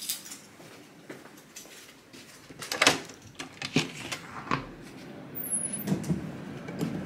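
A hotel room door being unlocked and opened: a series of metallic clicks and clacks from the handle, latch and swing-bar door guard, loudest about three seconds in, with duller knocks of the door near the end.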